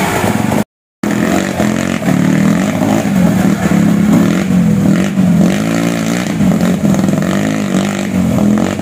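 Enduro dirt bike engines running at low speed, the engine note rising and falling as the throttle is worked over rocks in a shallow stream. The sound cuts out completely for a moment about a second in.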